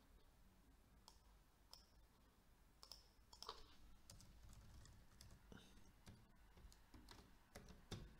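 Faint, scattered clicks of a computer mouse and keyboard keys as a name is typed in, a few sharp taps spread out with a couple of louder ones near the end, over a low steady hum.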